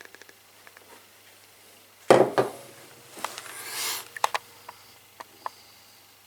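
Workshop handling sounds: a sudden loud knock about two seconds in, a hiss that rises for a little under a second, then four or five sharp light clicks.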